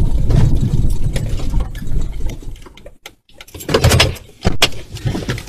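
Police patrol car driving over rough grass, a loud low rumble in the cabin that fades out as the car stops about three seconds in. A few sharp knocks and clatters follow near the end.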